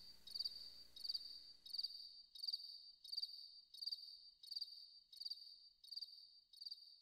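Cricket chirping steadily as night ambience, one short high chirp about every 0.7 seconds, slowly fading away.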